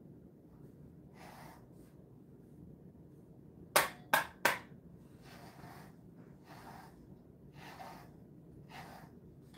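Grooming brush stroking through a Jindo dog's coat: soft brushing strokes roughly a second apart. About four seconds in come three sharp knocks in quick succession, the loudest sounds.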